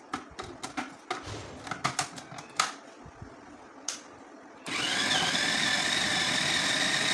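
Plastic clicks and knocks as the food processor's lid and feed tube are fitted and locked, then about two-thirds of the way in the motor starts with a brief rising whine and runs steadily, its blade chopping raw chicken, potato and greens.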